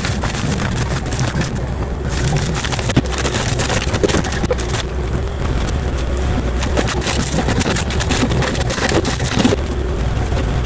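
Kubota KX040-4 mini excavator's diesel engine working steadily under load while its hydraulic forestry mulcher head shreds brush and briars, a dense crackle of chewed branches over the engine's drone. The crackle gets a little louder about two seconds in.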